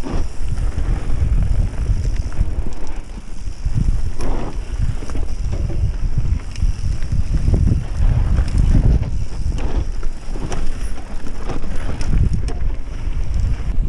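Mountain bike riding fast down a dirt trail: a constant low rumble of wind on the microphone and tyres on dirt, with scattered knocks and rattles from the bike over bumps.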